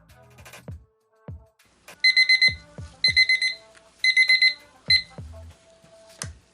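Digital timer beeping in quick groups of about four, one group a second, starting about two seconds in: the five-minute resin mixing time is up. Background music plays underneath.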